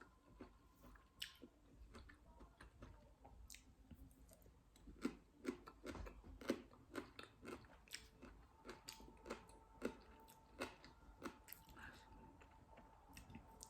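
Close-up chewing of crisp green mango: a steady run of crunches, about two a second, through the middle of the stretch.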